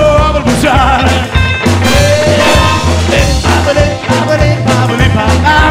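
Rockabilly band playing a fast song, with a bass line moving on every beat.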